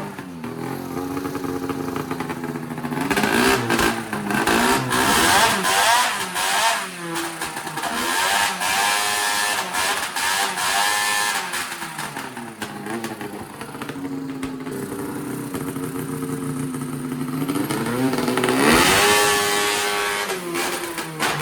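Supercharged snowmobile engine running and being revved up several times, dropping back toward idle between revs. It is running badly: the owner says it runs on about one cylinder once it goes past idle.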